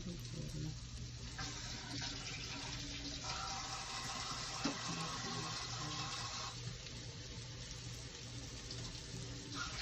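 Water running from a kitchen tap for about five seconds, turned on a little over a second in and off past the middle.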